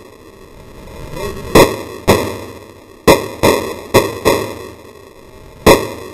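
Seven handgun shots at uneven intervals, each a sharp crack followed by a short echo: two about half a second apart, a quick run of four, then one more near the end.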